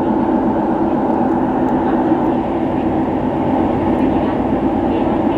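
Keihan 800 series train running through the subway tunnel, a steady rumble of wheels and motors.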